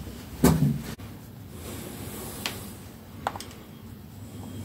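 A short thump about half a second in, then a couple of light metallic clicks as cam-cover bolts are handled and set into the aluminium cam cover of a Ducati 749S by hand.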